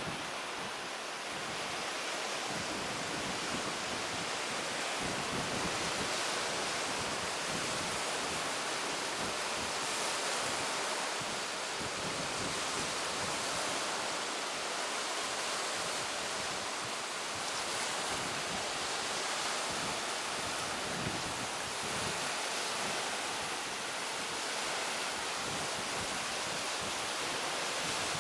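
Wind blowing steadily, a continuous rushing hiss that swells and eases slowly.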